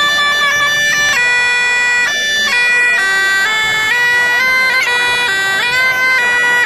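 Mouth-blown bagpipe playing a tune, the melody notes changing every half second or so over an unbroken sound.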